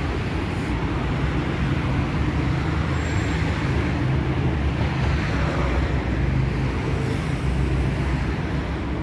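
Steady background road traffic noise, a continuous low rumble of cars with no single vehicle standing out.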